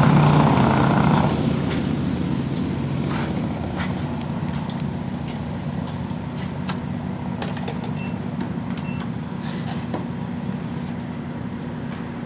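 An engine idling steadily. A louder rushing noise fades out about a second in, and a few faint light ticks sound at scattered moments.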